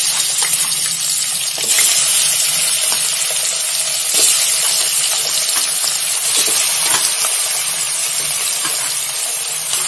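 Raw chicken pieces sizzling in hot oil in a metal pot as they are dropped in by hand: a loud, steady frying hiss, with a few soft knocks as pieces land and are moved about.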